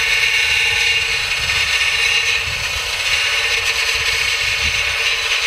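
Ingersoll Rand 12-volt cordless finger belt sander running steadily under hard pressure, its belt grinding into a spot weld in car body sheet metal to relieve the weld so the panel can be split apart. A loud, even high whine with many layered tones.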